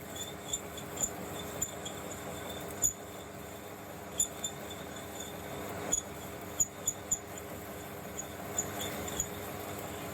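Metal lathe running while a 20mm drill bores into the end of an EN24T steel bar held in a fixed steady: a steady hum with irregular short, high-pitched chirps and ticks scattered throughout.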